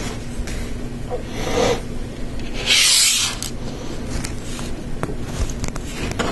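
Lego Technic plastic parts being handled: a short scraping rub about three seconds in, the loudest sound, a fainter one a little before it, and scattered small plastic clicks.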